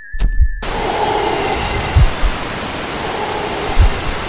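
Television static hiss, a loud even rush of white noise that starts suddenly about half a second in, cutting off a thin steady high tone. Two short low thuds sound within the hiss, about two seconds in and near the end.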